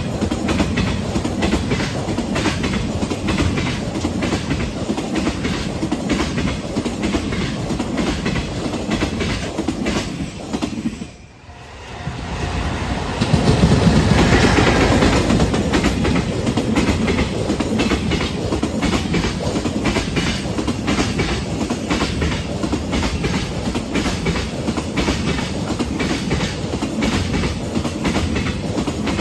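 Freight train wagons rolling past, their wheels clacking loudly over rail joints in a quick repeating rhythm over a low rumble. The sound drops away briefly near the middle, then returns louder.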